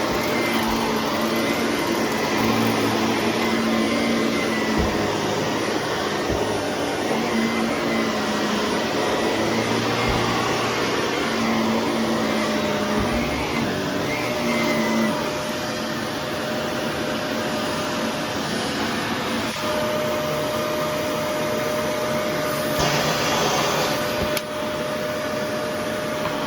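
Shark vacuum cleaner running steadily during vacuuming, its motor hum wavering in pitch over the first half and settling to a steady tone, with a brief louder rush of air a few seconds before the end.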